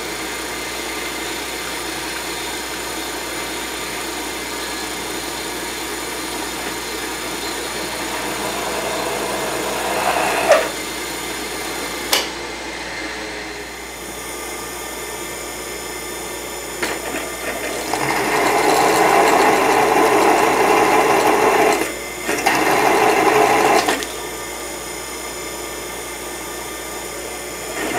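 Benchtop mill spindle running as a drill, with a bit cutting a 3/8-inch hole into a metal block. A steady running hum has a brief squeal and a single knock midway. The cutting sound is loudest in two stretches near the end, with a short break between them.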